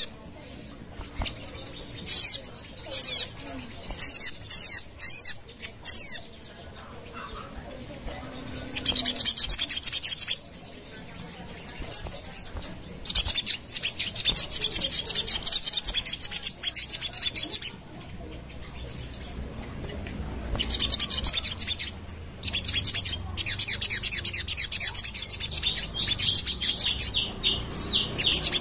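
Sogon, a small sunbird, singing: a few short, high-pitched chirping phrases, then long runs of very rapid, high trilling.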